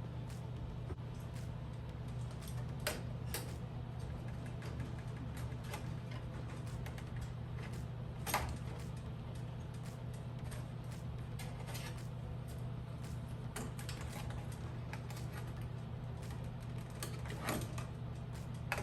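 Scattered light clicks and taps of small metal kit parts and hand tools being handled at a workbench, over a steady low hum.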